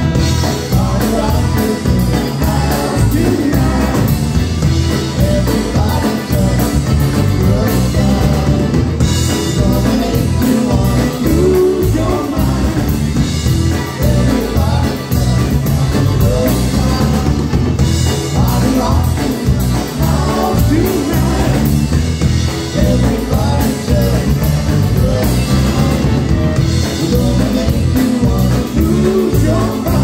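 Live polka band playing an upbeat medley of pop songs in polka style: button-box accordion, trumpets and a drum kit with a steady beat, and sung vocals.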